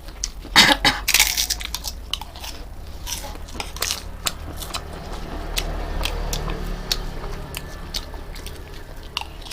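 Close-up chewing and crunching of food, with many short sharp mouth clicks and a louder crunch about half a second to a second in.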